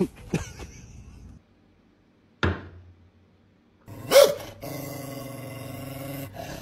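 A dachshund barks once, loud and sharp, about four seconds in, followed by a steady low drone for a couple of seconds.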